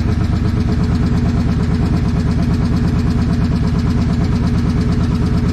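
Suzuki Boulevard C90's V-twin engine running at a steady idle with an even firing beat, on a test run after a new stator and regulator/rectifier were fitted to cure a no-charge fault.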